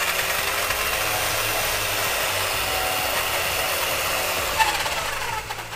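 RC car's electric motor and drivetrain running at high speed with the car up on a bench, its ice tires spinning freely while a hot dog is held against one tire and torn up. Near the end the throttle comes off and the motor winds down with a falling whine.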